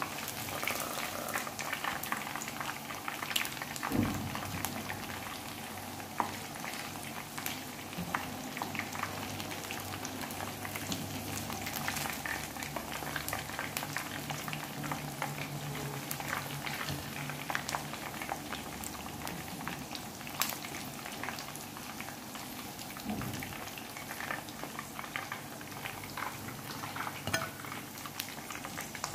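Parboiled chicken pieces frying in hot oil in a pan: a steady sizzle with frequent crackles and pops.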